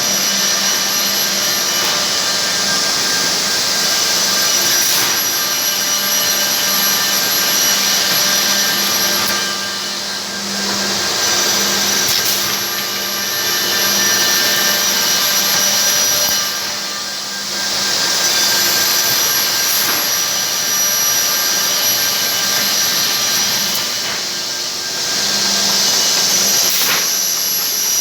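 ESPRINTER automated CNC line running: a loud, steady machine noise with a high-pitched hiss and whine. The level dips briefly about every seven seconds, with a few short clicks.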